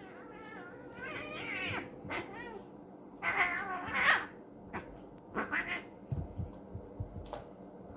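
Persian cats yowling and crying during a wrestling play-fight: several drawn-out, wavering cries, loudest about three to four seconds in, then shorter cries. There are a few low thumps near the end.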